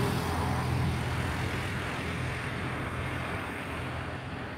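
Steady engine drone with a low hum, slowly fading away.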